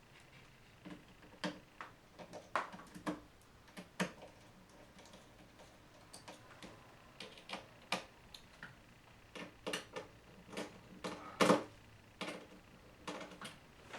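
Small screwdriver working the tiny screws that hold a replacement LCD panel in a laptop lid, giving irregular light clicks and ticks of metal and plastic, the loudest about eleven and a half seconds in.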